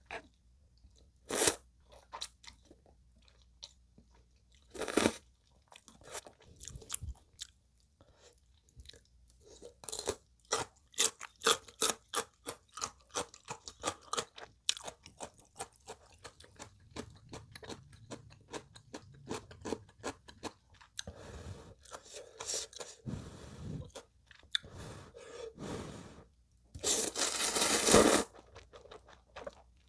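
Close-miked eating of instant ramen noodles: short slurps a couple of seconds in, then a long run of rapid wet chewing, and a long loud slurp of noodles near the end.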